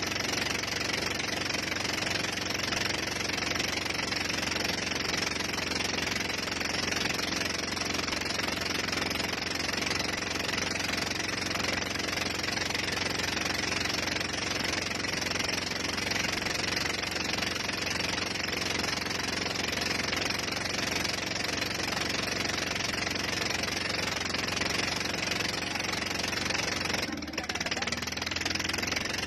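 Motorboat engine running steadily while towing a banana boat, with a constant rushing of water and wind; the sound dips briefly near the end.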